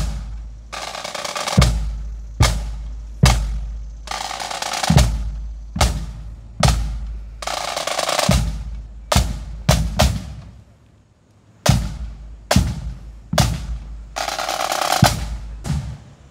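Pipe band drum section marching: bass drum strokes roughly once a second with snare drum rolls between them, a slow march cadence. The drumming breaks off briefly about ten seconds in, then resumes.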